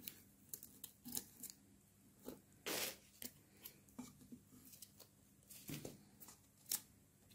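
Small scissors snipping the excess glued napkin paper along the edge of a wooden tray, with paper rustling as the tray is turned: a string of faint short snips, one longer rustle about three seconds in and a sharper click near the end.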